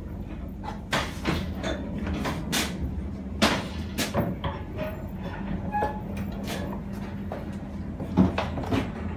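Irregular knocks and clunks, like doors and fittings, over the steady low hum of a passenger train carriage.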